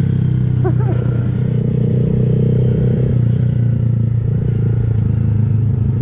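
Honda Grom's single-cylinder 125 cc engine running at a steady riding speed through an aftermarket Kemimoto exhaust, with small rises and dips in engine speed. A brief chirp sounds about a second in.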